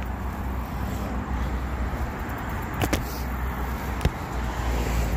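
A car approaching on the road, its tyre and engine noise rising toward the end, over a steady low wind rumble on the microphone. A couple of sharp clicks sound about three and four seconds in.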